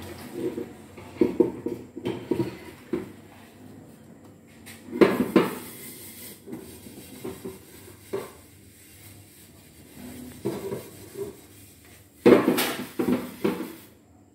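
Kitchen clatter of dishes and pans being handled: scattered knocks and scrapes, with louder clanking about five seconds in and again near the end.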